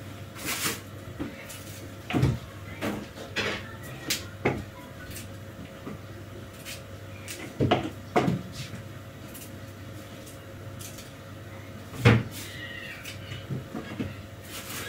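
A knife cutting and breaking fresh cauliflower into florets, giving scattered clicks, snaps and knocks, the loudest about twelve seconds in, over a steady low hum.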